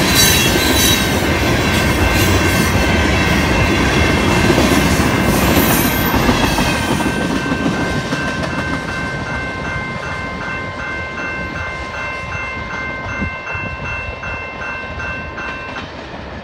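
Tank cars of a long freight train rolling past at speed, the wheels running loudly on the rails, then fading away as the end of the train passes. Through it a railroad-crossing bell rings with a steady even beat, plainer in the second half as the train noise dies down.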